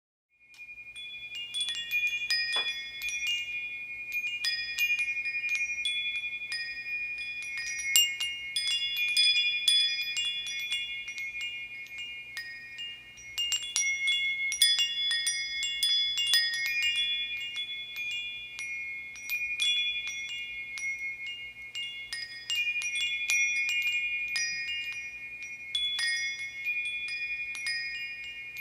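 Metal bar wind chimes jangling irregularly, the bars striking each other so that clear, high ringing tones pile up and overlap without pause.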